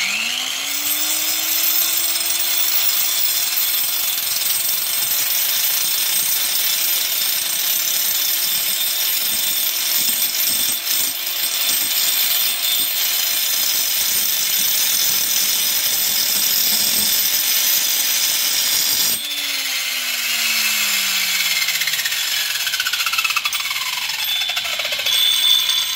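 A grinder grinding down a steel oil filter wrench that turns on a makeshift motor-driven lathe, a loud, steady grinding noise. The motor spins up at the start, and about 19 seconds in one motor cuts off and winds down in falling pitch. A second falling whine follows near the end while the grinding runs on.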